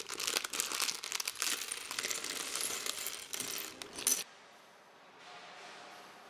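Small plastic Lego pieces clattering and clicking in a crinkling plastic parts bag as it is opened. The sound stops abruptly about four seconds in, and faint music follows.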